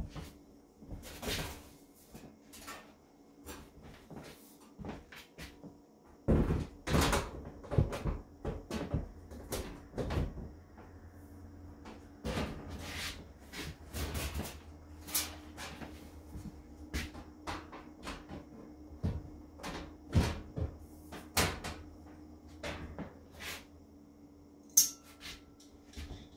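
Sheet-metal breaker panel covers being handled and fitted onto their boxes: irregular clanks, knocks and scrapes of thin metal against metal, with one sharp click near the end. A faint steady hum runs underneath.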